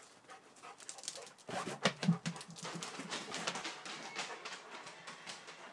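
Large dogs eating dry kibble from stainless steel bowls: quick crunching and clinking of the bowls, with panting. The sound starts about a second and a half in, and its loudest clatter comes around two seconds in.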